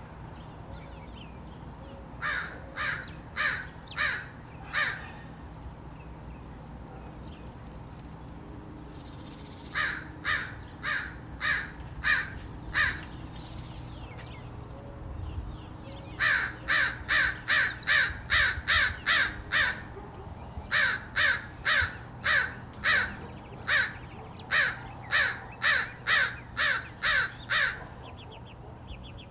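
American crows cawing in alarm at a gray fox: bouts of short harsh caws repeated quickly, two short runs of about five early on, then longer, louder runs through the second half.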